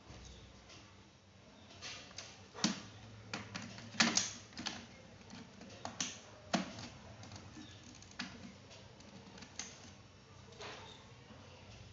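Irregular clicks and taps from hands handling a laptop's plastic case and small parts during disassembly, the loudest cluster about four seconds in.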